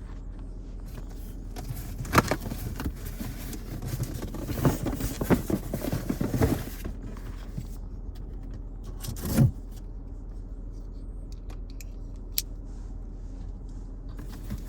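A cardboard shipping box being opened and its contents handled: bouts of rustling, scraping and clicking, a thump about nine seconds in and a sharp click a little later, over a steady low hum.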